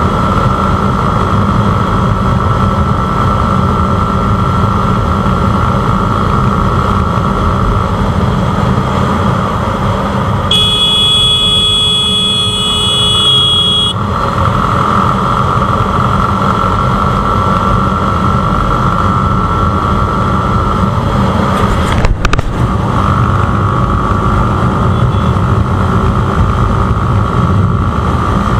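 Motorcycle riding at about 90 km/h on a highway: steady engine and wind noise. About ten seconds in, a high steady tone sounds for about three seconds, and a sharp knock comes later.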